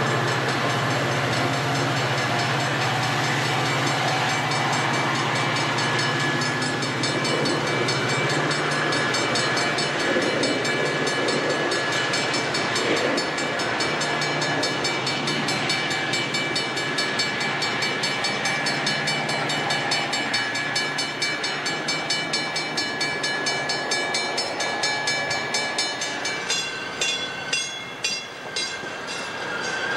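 Metra diesel locomotive passing with its engine running steadily, followed by bilevel commuter coaches rolling by with a rhythmic clatter of wheels over the rail joints. Near the end the sound changes abruptly to a quieter stretch with sharp clicks.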